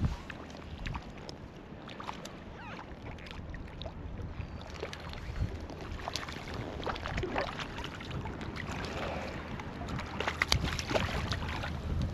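Small waves lapping and slapping against an inflatable float tube, with scattered light clicks and taps, growing a little louder near the end.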